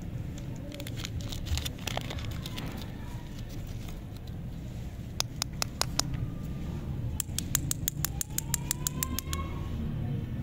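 Crinkly plastic wrapper of a chocolate lollipop being peeled off by hand: scattered crackles and sharp clicks, with a rapid run of clicks in the second half, over a steady low hum.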